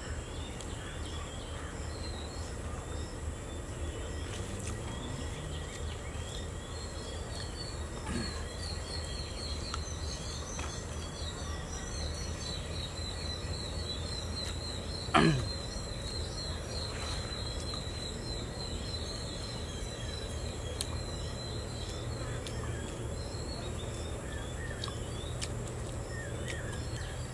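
Outdoor ambience with a steady low rumble and a high chirping trill through much of it. A single short falling call sounds about halfway through.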